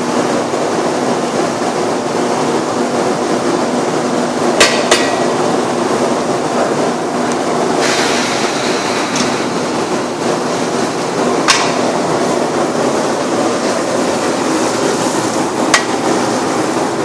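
Steady roar of high-pressure gas burners under large cooking pots, with a few sharp metal clanks, two of them close together.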